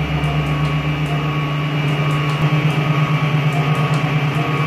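Background music with sustained, held notes and a bass line that changes a few times.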